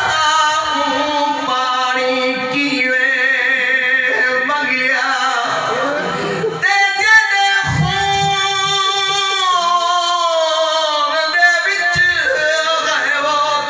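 A man's voice chanting a soz, the Shia mourning lament, unaccompanied, in long held, wavering melodic phrases. He breaks for breath about halfway and again near the end.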